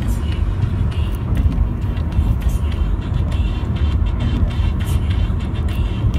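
Steady low road and engine rumble of a car driving at highway speed, heard from inside the cabin, with music playing faintly in the background.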